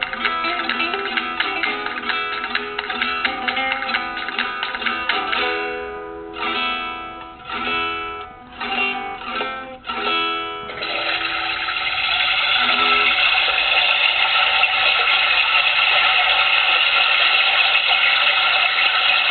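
A plucked-string tune plays in short phrases and stops about eleven seconds in. A steady rush of flowing water then starts: a recorded toilet-flush sound from an iPhone app, used to mask toilet noises.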